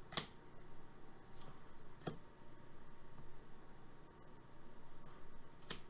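Hockey trading cards being handled: a few short, soft swishes and taps, the loudest just after the start, another at about two seconds and one near the end.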